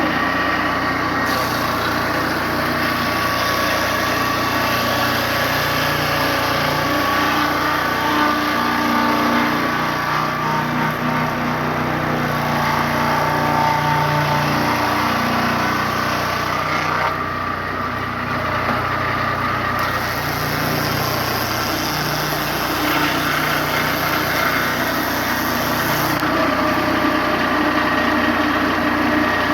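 A Turbosawmill M8 circular sawmill's engine running steadily, with its sound shifting abruptly a few times.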